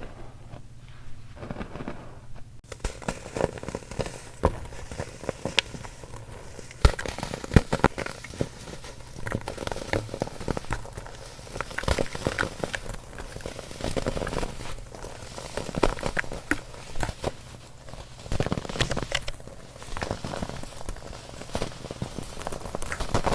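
Baking soda being crushed and crumbled: a dense run of crunchy crackles that starts a couple of seconds in, after a quieter stretch.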